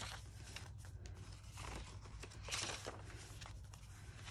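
Faint rustling and sliding of paper as the pages and paper inserts of a handmade journal are turned and handled, with a couple of louder rustles around the middle.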